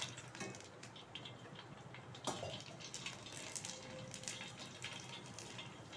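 Instant pani puri pellets frying in hot oil in a kadai with the flame switched off: a faint sizzle with scattered crackles and pops, one sharper pop about two seconds in.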